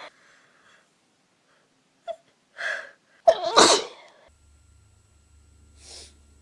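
A woman sneezes once: a quick in-breath about two and a half seconds in, then one loud sneeze, and a faint breath near the end. It is an allergy sneeze that she puts down to dust, though she wonders if it is a cold.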